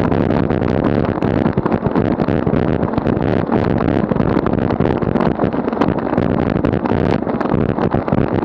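Wind rushing over the microphone of a camera on a moving bicycle, a loud steady rush with many small clicks and knocks through it.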